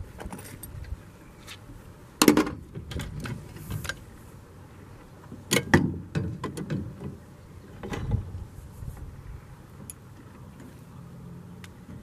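Metal clanks and knocks of a Granberg chain-filing jig being handled and set in place on a Stihl chainsaw bar, with three louder knocks about two, five and a half and eight seconds in and quieter rattling between them.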